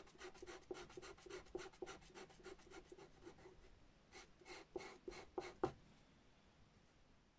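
Faint scratching of a pastel pencil on dark paper in quick short strokes, about five or six a second, drawing fur; a few firmer strokes come about four to five and a half seconds in, then the drawing stops.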